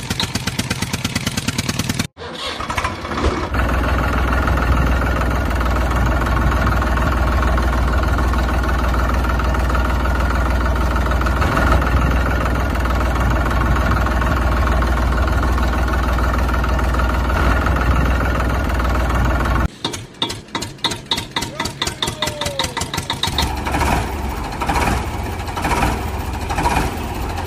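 Diesel tractor engine sound chugging at an even beat. It breaks off after about two seconds into a long steady low rumble, and the chugging comes back about two-thirds of the way through.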